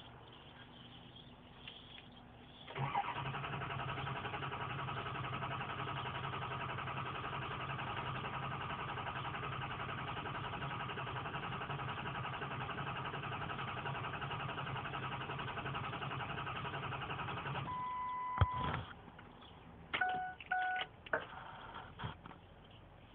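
Starter cranking a 2003 Ford 6.0 Power Stroke V8 diesel steadily for about fifteen seconds without it firing: a crank-no-start. It is followed by a few short electronic beeps.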